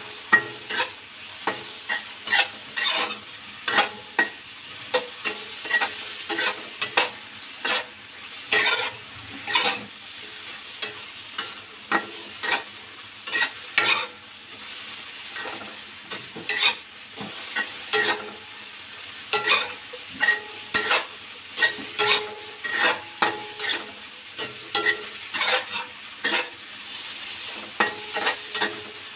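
Eggplant slices sizzling in oil in a honeycomb-textured wok, with a metal spatula scraping and clinking against the pan in quick, irregular strokes over a steady frying hiss.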